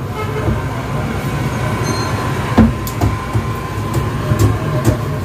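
A paint can's lid being worked open by hand: a few sharp clicks and one louder knock about two and a half seconds in. A steady low rumble runs underneath.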